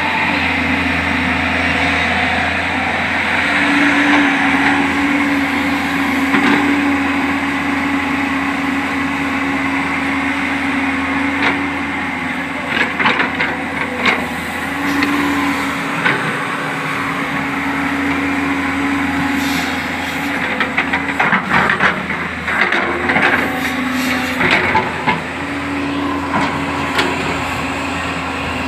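JCB backhoe loader's diesel engine running steadily under work. A run of sharp knocks and clatters comes about halfway through and again near the end.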